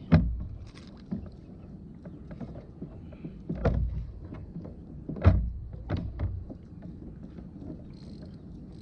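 Several hollow thumps and knocks on a sit-on-top kayak's plastic hull as the angler shifts and handles the rod, the loudest right at the start and about five seconds in.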